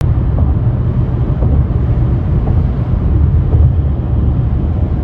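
Steady low rumble of road and wind noise from a car driving at motorway speed, cutting in abruptly after silence.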